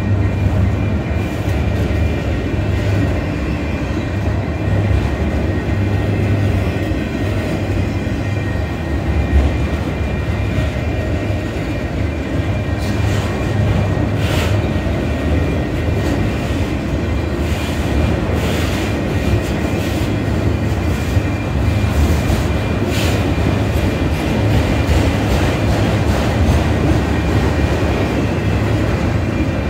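Autorack freight cars rolling past at close range: a steady low rumble of steel wheels on the rails, with a few sharp clanks and clicks around halfway through.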